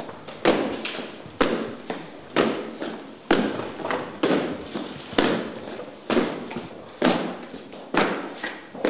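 Slow, regular thuds, about one a second, each with an echoing tail as in a large hall.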